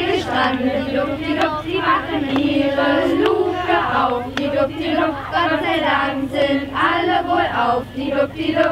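A group of voices singing together, the melody held in a fairly high register with no pause.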